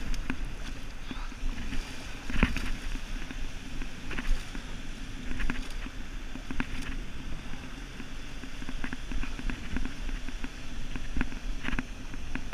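Wind buffeting the microphone and shallow surf washing over wet sand, with scattered light knocks and clicks.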